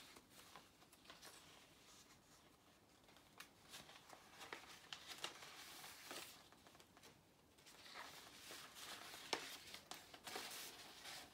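Faint rustling and crinkling of loose printed paper sheets being shuffled and turned over, with a few brief crisp crackles.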